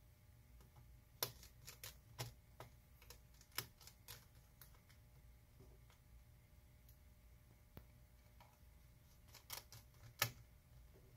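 Scattered light metallic clicks and taps of a screwdriver driving small screws into a laptop's internal frame, coming in three short bunches with the loudest click near the end.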